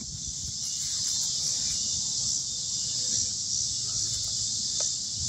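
Steady outdoor insect chorus, a continuous high shrill hum, with a low rumble underneath.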